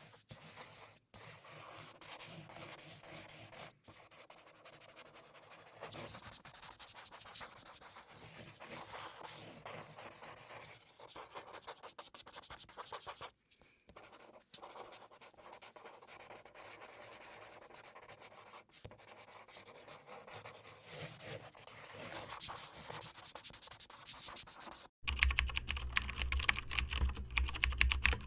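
Rapid clicking of computer keyboard typing, pausing briefly a few times, then turning much louder and heavier about 25 seconds in.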